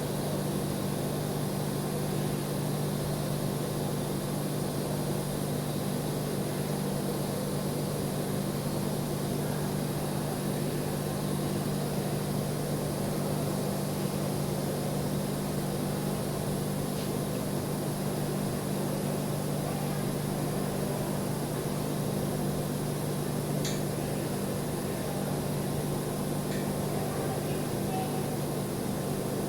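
Welding equipment running with a steady electrical hum and even hiss that does not change, with a couple of faint ticks.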